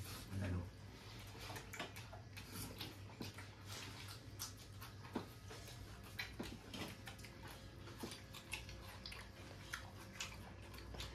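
People eating rice and curry with their hands from steel plates: scattered small clicks, taps and chewing sounds at irregular intervals.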